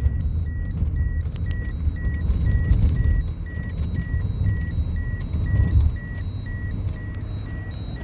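Low rumble of a car driving on a paved road, heard from inside the cabin, with a short high-pitched electronic beep repeating about twice a second that stops shortly before the end.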